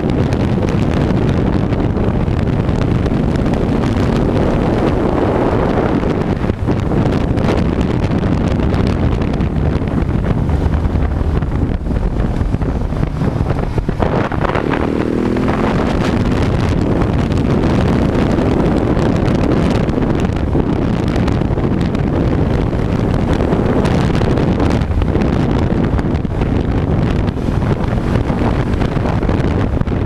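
Heavy wind noise buffeting the camera microphone on a moving KTM 690 SMC, with the bike's single-cylinder engine running underneath. About halfway through, the engine note briefly glides in pitch.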